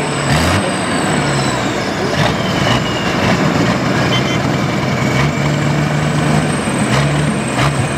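Valmet 8200 tractor's diesel engine running loud, its pitch shifting up and down in steps, with a thin high whistle slowly falling in pitch above it.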